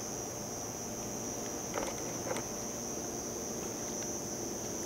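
Steady high-pitched insect chirring, with a couple of faint ticks about two seconds in.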